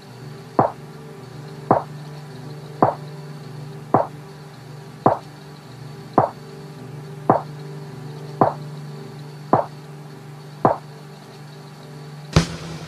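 Short, dry percussive knocks repeating steadily about once a second over a low, steady drone, as the sparse intro of an electronic track. Near the end a louder hit comes in as the full beat starts.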